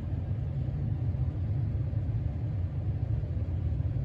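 Steady low rumble of background noise, even throughout.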